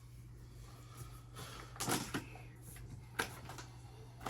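Handling noise from cardboard firework cake boxes being moved: a few sharp knocks and light rustles about two and three seconds in, over a low steady hum.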